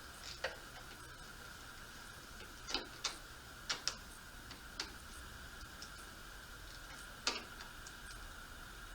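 Scattered sharp metal clicks, about seven at uneven intervals, from a screwdriver turning the screw of a hose clamp as it is tightened. A faint steady high hum runs underneath.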